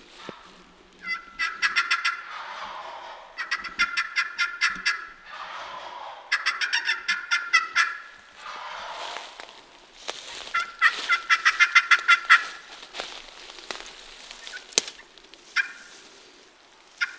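Wild turkeys gobbling at close range, four loud rapid rattling gobbles a couple of seconds apart, from a group of jakes (young male turkeys) that came in to the call. A single sharp click comes near the end.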